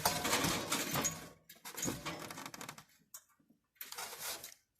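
Hands handling and shifting the plastic and metal parts of a window air conditioner's fan assembly: clattering and rustling in three bursts, with short pauses between.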